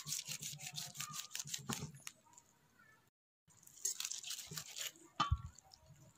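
A large kitchen knife slicing and scraping raw mutton off the shank bone: quick, repeated scraping strokes. There is a short break about three seconds in, then more strokes and a dull thump near the end.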